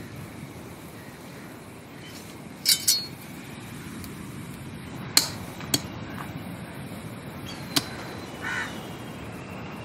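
A knife striking thin bamboo strips against a floor: five sharp knocks spread over several seconds, the first two close together. A crow caws briefly near the end.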